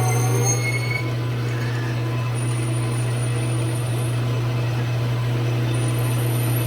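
Metal lathe running in a machine shop: a steady low hum, with fainter whining tones that fade about a second in.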